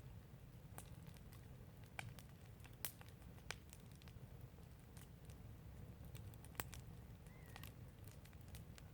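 Wood fire crackling softly: scattered sharp pops and snaps, irregularly spaced, over a low steady rumble.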